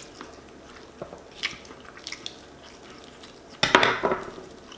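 Light clicks and clinks of cutlery and a plate being handled, with one louder short noisy burst a little over three and a half seconds in.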